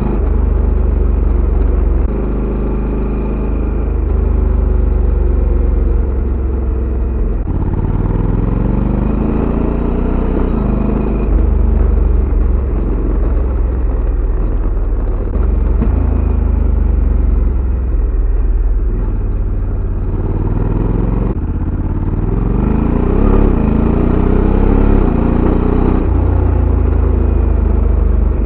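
Honda Africa Twin CRF1100 Adventure Sports DCT's parallel-twin engine, heard close to its stock exhaust outlet. It runs steadily, and its revs rise and fall several times between the steadier stretches.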